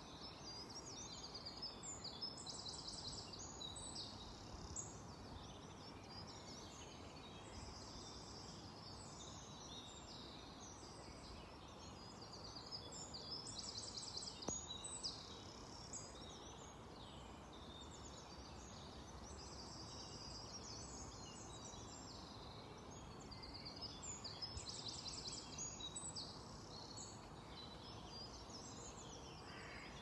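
Songbirds singing in the trees: high-pitched chirps and trilled song phrases that come back every few seconds, over a faint steady background hum.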